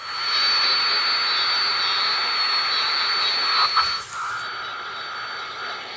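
AM transistor radio hissing with loud static and a steady high whistle: the radio's ferrite-rod antenna has been turned out of line with the transmitter's magnetic field, so the transmitted voice no longer comes through. A brief clunk of the radio being handled about four seconds in, after which the hiss is a little quieter.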